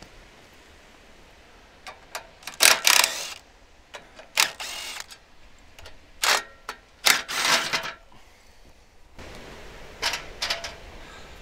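Sharp metallic clicks and short scraping rattles in bursts a second or two apart, from the steel bracket of an Alaskan chainsaw mill being handled and adjusted. Near the end, a steady hiss of surf and wind comes in beneath them.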